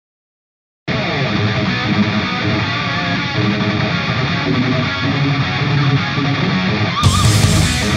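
Digital silence, then about a second in an electric-guitar rock music track starts abruptly and carries on at a steady level. Near the end a brief, brighter hissing sound joins it for about a second.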